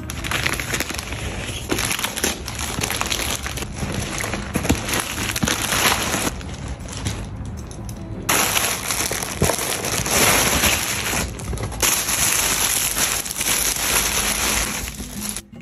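Packaging being handled and torn open while a delivery is unboxed: close, continuous crinkling and crackling with many small crackles, easing briefly around halfway.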